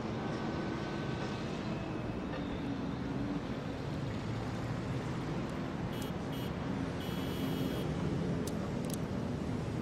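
Steady city street ambience: a continuous wash of traffic noise, with a few faint, brief high tones about two-thirds of the way through.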